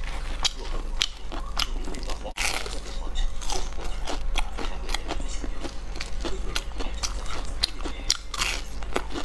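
Close-miked biting and chewing of crispy deep-fried food, a quick run of sharp crunches throughout.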